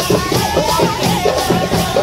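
Folk drum troupe playing a fast, dense beat on shoulder-slung drums and large brass hand cymbals. A steady held tone joins about a second and a half in.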